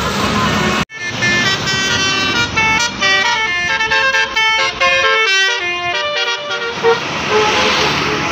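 Bus 'telolet' horn, a multi-tone musical bus horn, playing a quick tune of changing notes. It cuts in abruptly about a second in.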